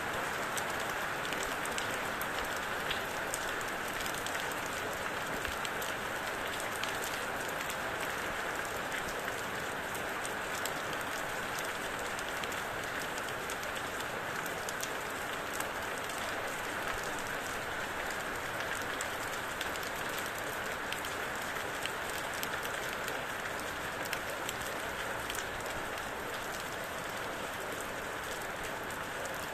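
Steady rain falling, a constant hiss with many individual drops ticking and pattering on a surface.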